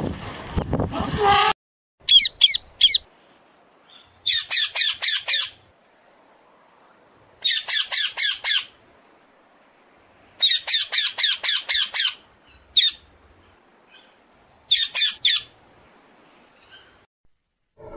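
Wind noise on the microphone for the first second and a half, then a green-winged macaw squawking: short groups of several rapid, high calls every two to three seconds, one of them a single call.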